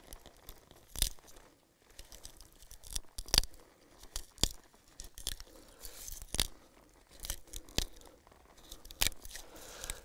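Knife blade scoring and prying the flaky bark of a fallen pine log: scattered sharp crackles and short tearing scrapes at irregular intervals. The bark here is partly dried out.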